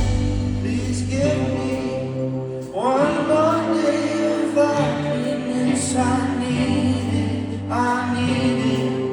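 A song performed live, with a drawn-out, wordless vocal line that slides between held notes over sustained accompaniment.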